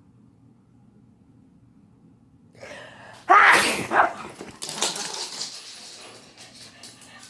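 A single loud sneeze a little over three seconds in, with a short build-up just before it, followed about a second later by a second, weaker burst that trails off.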